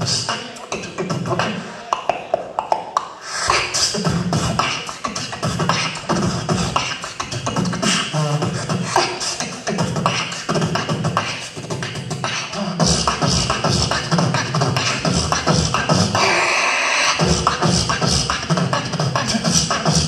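Solo human beatboxing through a microphone and stage speakers: a fast, steady run of vocal kick, snare and hi-hat sounds. From about two-thirds of the way through, the bass gets heavier, and a held hissing sound comes in for about a second near the end.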